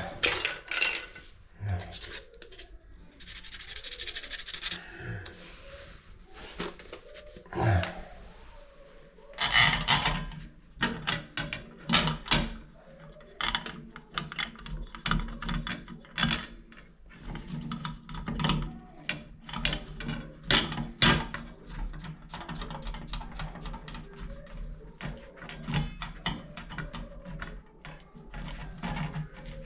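Irregular rubbing and scraping strokes with small clicks, from hand work on shower faucet parts. They come in quick uneven runs from about a third of the way in, with a short hiss early on.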